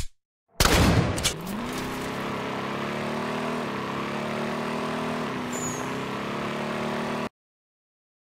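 Added vehicle engine sound effect: after a sharp crack and a short loud burst, an engine revs up and runs steadily, its pitch dipping and climbing back twice, then cuts off suddenly near the end.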